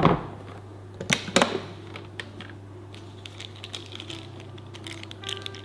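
Electric rice cooker set down on a countertop with a thud, then two sharp clicks about a second in as its lid latch is released and the lid opens, followed by light scattered clicks and taps.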